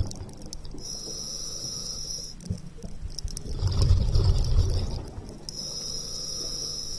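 Scuba diver's regulator breathing underwater. A hissing inhale comes through the regulator about a second in and again near the end, with a loud low bubbling exhale of exhaust bubbles in between.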